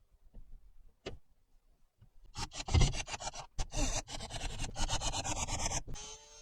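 Sandpaper rubbed by hand along a wooden roof batten in rapid back-and-forth strokes, starting about two and a half seconds in after a single click.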